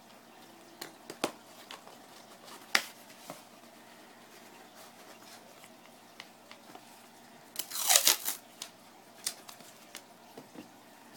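Masking tape being pulled off its roll and pressed onto a cardboard shipping box: scattered light taps and rubs, with one longer, louder burst of tape peeling off the roll about eight seconds in.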